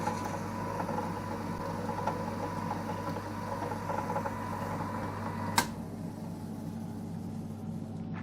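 EMCO Compact 5 PC benchtop lathe running under CNC control during a facing cut: a steady mechanical hum with several tones. About five and a half seconds in there is a sharp click, and part of the hum drops away as the motion stops, leaving a quieter steady running sound.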